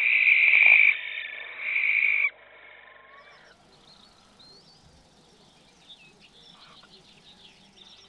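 Barn owl screeching: two harsh, hissing screeches, the second ending sharply about two seconds in. After that only faint, high, wavering chirps in the background.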